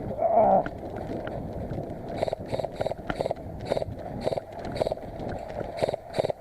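Footsteps of a player walking on rough ground, short crunching steps about two a second from about two seconds in, over a steady background noise, with one short louder sound just after the start.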